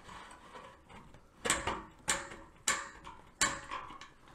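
Hand tin snips cutting sheet steel: a series of about five sharp snips, starting about a second and a half in and spaced roughly half a second apart.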